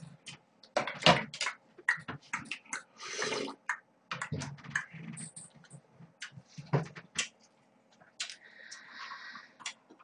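A person eating cold noodles close to the microphone: short wet slurps and chewing, mixed with sharp clicks of metal tongs and chopsticks against the dishes.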